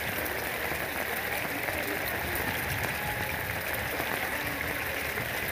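Fast-flowing floodwater rushing along a flooded lane, a steady, even rush of water.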